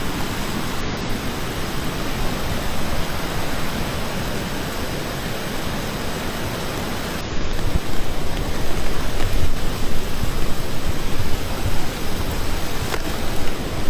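Floodwater of a creek that has burst its banks, a muddy torrent rushing across the street in a steady dense rush. It grows louder and more uneven about halfway through.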